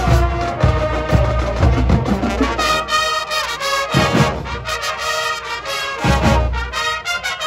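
High school marching band playing: brass chords and melody over drums, with bass drum strokes, the brass growing fuller a few seconds in.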